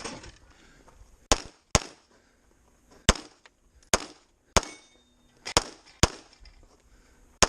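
Eight pistol shots fired during an IPSC course of fire, each a sharp crack with a short echo, at uneven spacing with two quick pairs about half a second apart.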